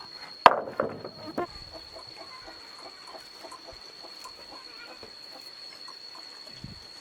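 Chicken squawking loudly a few times in quick succession, then faint clucks and scratches, over a steady thin high whine.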